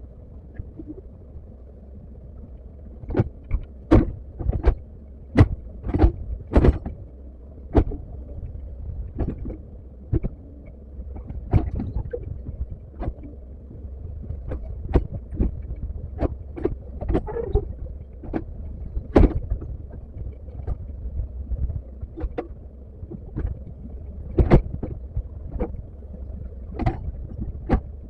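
Komatsu excavator working: its diesel engine runs with a steady low rumble, and many sharp, irregular knocks and clanks come every second or so, loudest between about 3 and 8 seconds in and again near the end.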